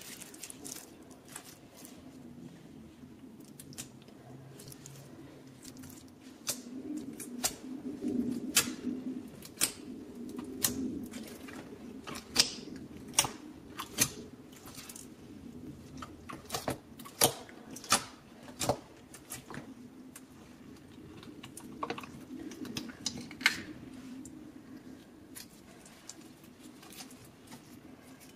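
Crystal clear slime being patted, poked and pulled by fingers: irregular sticky clicks and pops, thickest through the middle of the stretch and thinning out towards the end.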